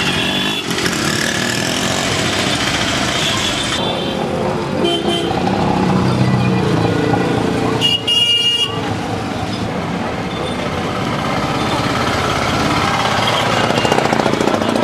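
Busy street traffic: motorcycle and other vehicle engines running, with short horn honks now and then, the clearest a brief honk about eight seconds in.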